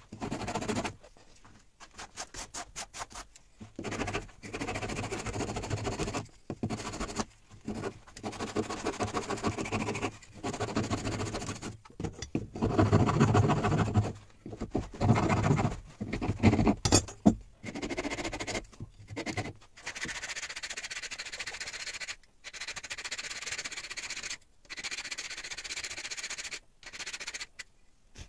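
Flat metal file rasping across a piece of wood in bouts of quick back-and-forth strokes, with short pauses between bouts. The strokes are heavier for the first twenty seconds or so, then lighter and higher-pitched.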